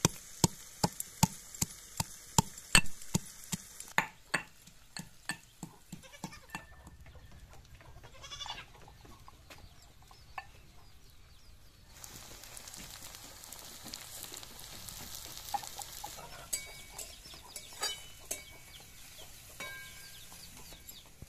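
Metal pestle pounding garlic cloves in a metal mortar: sharp, even strikes about two to three a second that slow and die away after about six seconds. After that only faint, scattered sounds remain.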